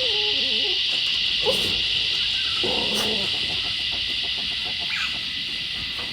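Loud, steady, high-pitched drone from a chorus of insects that rub their long wings together, the constant background noise of the Australian bush. A short wavering animal call sounds at the very start, with a few fainter calls and clicks under the drone a second or two later.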